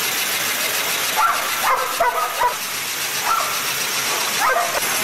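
Dogs running on wooden-slat treadmills yip and whine in short calls, about 1 s in, around 2 s, near 3.3 s and once more with a rising pitch near the end, over the steady running noise of the treadmills.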